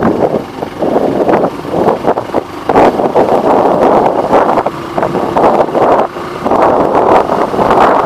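Wind buffeting the microphone of a moving motorcycle, rising and falling in gusts, with the bike's running noise underneath.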